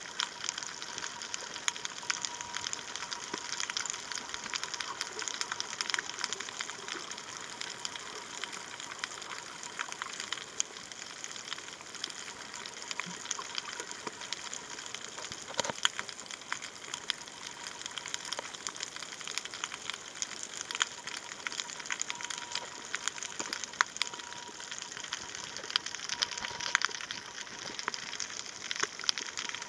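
Underwater reef ambience picked up by a waterproof compact camera: a steady crackling hiss, made up mostly of higher sounds, with many scattered sharp clicks, and a faint steady whine in places.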